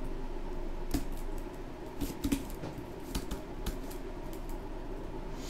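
Computer keyboard keys clicking in a few irregular, scattered keystrokes while code is entered in a text editor, over a steady low hum.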